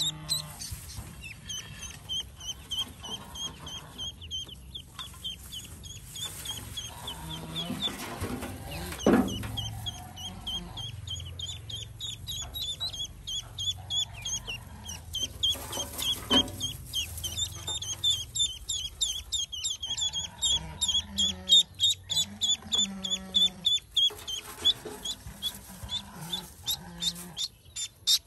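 Newly hatched Pekin ducklings peeping steadily, many short high peeps a second, with a few lower clucking calls from an adult bird mixed in.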